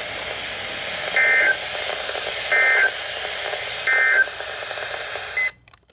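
NOAA Weather Radio over a steady hiss of reception static: three short bursts of warbling SAME digital data tones, about a second apart, the end-of-message code that closes a broadcast alert. The audio cuts out just before the end.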